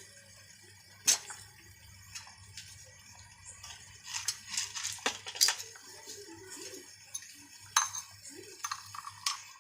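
Kitchen utensils clinking and knocking, a scatter of sharp metallic clinks that bunch together about four to five seconds in.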